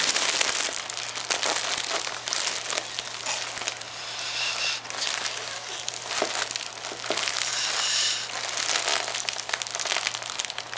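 Foil (mylar) helium balloon crinkling as it is squeezed in both hands, its neck held at the mouth to breathe in the helium.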